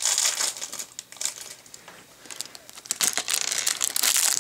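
Thin clear plastic bag holding Lego minifigure parts, crinkling and rustling in irregular bursts as it is handled and opened, with a quieter stretch between one and two seconds in.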